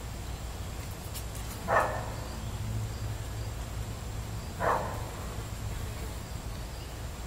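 A dog barking twice, single short barks about three seconds apart, over a steady low hum.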